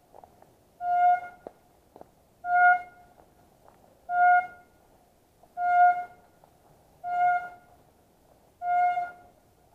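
Signal horn sounding six short blasts at one steady pitch, evenly spaced about one and a half seconds apart, of the kind used to mark the start or end of an airsoft game.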